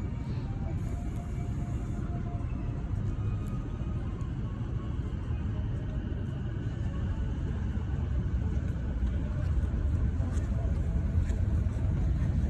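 Steady low rumble, growing a little louder over the last few seconds.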